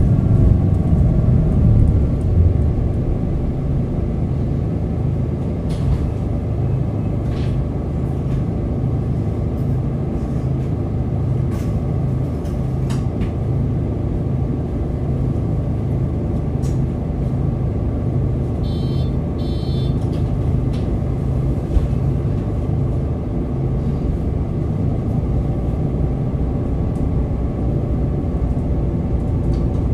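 A MAN NL 323 Euro 6 city bus's inline-six diesel engine running, with a falling whine in the first couple of seconds as it slows, then a steady low rumble. Brief high electronic beeps sound about two-thirds of the way in.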